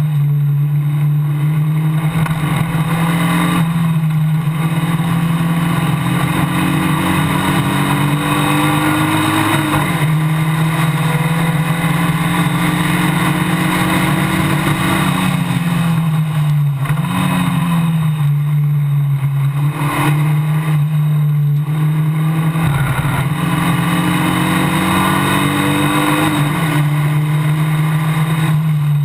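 Onboard sound of a Formula Basic single-seater race car at racing speed. The engine note climbs steadily and then drops back at each gear change or lift, about four times, over a constant low drone and rushing noise.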